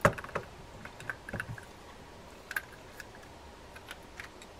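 Small metal and plastic clicks and taps of a baitcasting reel's spool being fitted into the reel frame by hand: one sharp click right at the start, then scattered lighter clicks.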